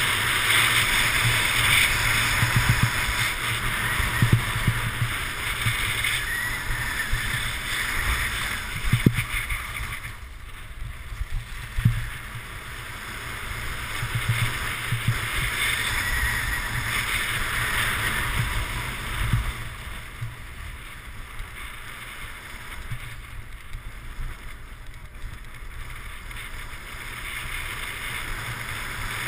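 Skis scraping and carving over packed snow, a hiss that swells and fades with each turn, over wind rumbling on the camera's microphone, with occasional low thumps. It turns quieter and softer about two-thirds of the way through.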